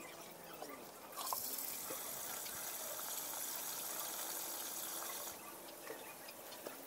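Water running in a steady rush that starts about a second in and stops suddenly about four seconds later, with a few small splashes and clicks around it.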